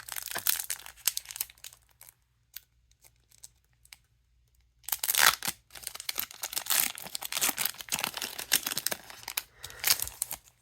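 A trading-card booster pack wrapper crinkling, then, after a short pause, being crinkled and torn open about five seconds in, with a dense crackle of handling until the end.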